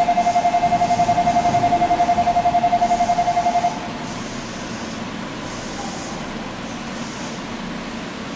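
A train door buzzer sounds in a rapid, even pulse for nearly four seconds while the doors of a stopped Hokuso 9100-series train open, then cuts off. The steady hum of the standing train remains.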